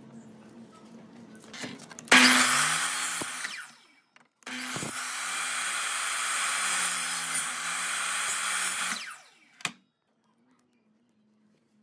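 Compound miter saw cutting small pine strips twice: a short cut about two seconds in, then a longer one, each with the motor running at speed and winding down afterwards. A single click follows near the end.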